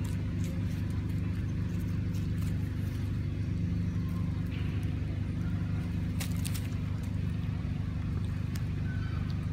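A steady low engine hum, with a few sharp clicks about six seconds in.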